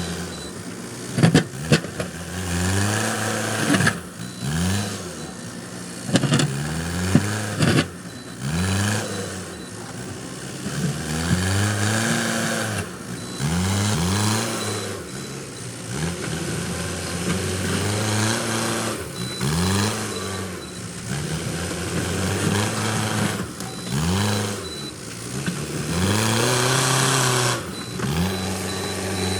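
Backhoe loader's diesel engine working hard, its pitch rising and falling again and again every couple of seconds. A few sharp knocks come in the first two seconds and again about seven seconds in.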